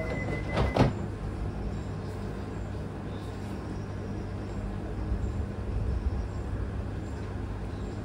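A train at a station with a steady low hum. Just under a second in, a sharp clunk comes as a steady high tone cuts off.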